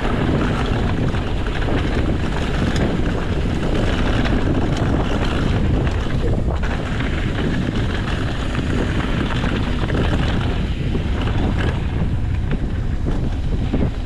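Wind buffeting the microphone over the steady rumble of a mountain bike riding fast down a downhill trail, with scattered clicks and rattles from the bike and tyres on the ground.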